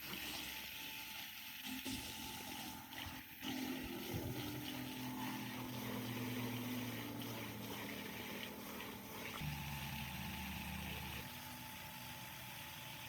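Restored electric water pump running, its motor humming steadily with water rushing through it; the hum shifts in pitch a few times.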